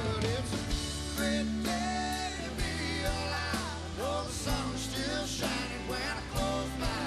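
Live country-rock band playing an instrumental passage: electric lead guitar with bending notes over bass and drums.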